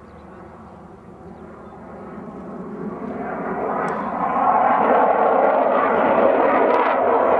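Military jet fighter flying past: its engine noise swells steadily as it approaches and becomes a loud, even rush from about halfway through.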